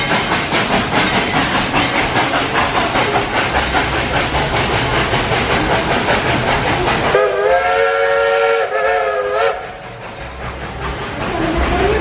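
Dollywood Express steam locomotive chuffing steadily with rapid, even beats, then sounding a chord whistle for about two seconds, starting about seven seconds in.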